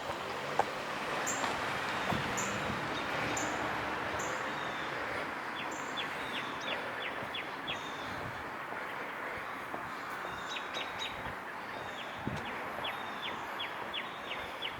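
Steady hiss and rumble of city street traffic. High, quick downward chirps repeat over it, coming in runs through the second half.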